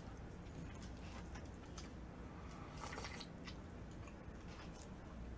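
Quiet eating sounds: soft chewing and slurping of kimchi udon noodles and broth, with a brief louder slurp about three seconds in.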